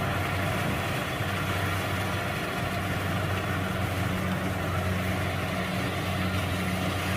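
Rice combine harvester's engine running steadily: an even, low drone.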